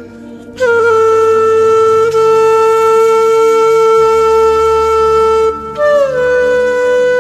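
Background music: a solo wind instrument plays long held notes over a low drone. It enters about half a second in and holds one note for about five seconds, then comes back on a slightly higher note that slides down.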